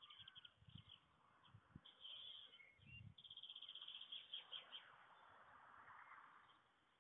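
Faint bird chirps: a quick run of high chirps about three seconds in, with a few soft low thumps.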